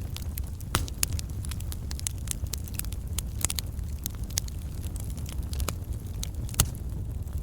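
Wood campfire burning: irregular sharp crackles and pops of burning logs over a steady low rumble of the flames, with one louder pop near the end.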